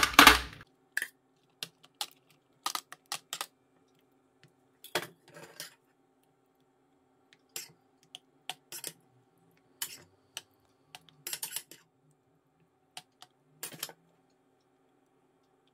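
Metal ladle knocking and scraping against a metal baking pan and pot while spreading béchamel and spooning ratatouille into a lasagne. There is a loud clank at the start, then scattered light clicks and scrapes that stop about 14 seconds in.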